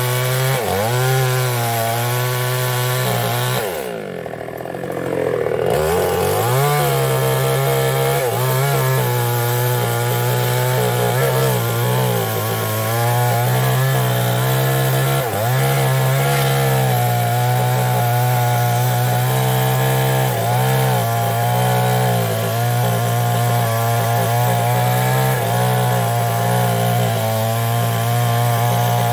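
Two-stroke chainsaw running hard while cutting through the trunk of an old mahogany tree. Its pitch sags and recovers several times as the chain bites, most deeply about four seconds in, where the engine briefly slows and drops in level before revving back up.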